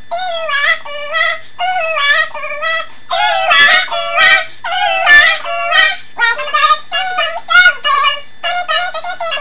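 A voice sped up to a high chipmunk pitch, singing in short wavering phrases.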